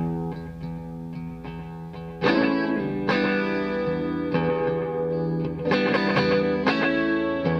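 Electric guitar playing sustained, ringing chords with picked notes over them. A chord sounds right at the start, and louder chords come in about two seconds in and again near six seconds.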